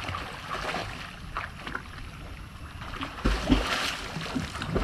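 Pond water splashing and sloshing as people swim, in an uneven patter of small splashes, with a louder rush of noise a little past three seconds in.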